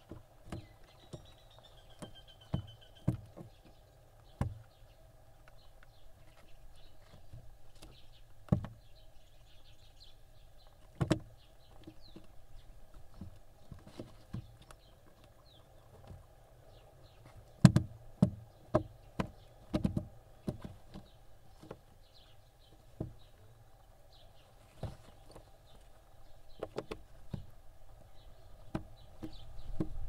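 Irregular knocks and taps as barn owl chicks step and shuffle about on the floor and against the walls of a plywood nest box, with a run of louder knocks past the middle. A faint steady hum runs underneath.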